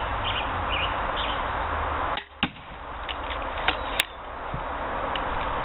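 Pistol crossbow being shot: a sharp snap about two and a half seconds in, a few small clicks, then the loudest sharp snap about four seconds in, over a steady background hiss.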